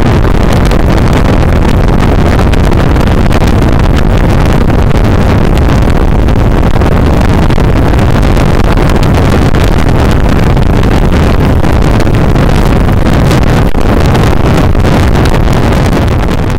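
Motorcycle riding steadily at highway speed: loud wind rush buffeting the camera microphone over the steady drone of the engine.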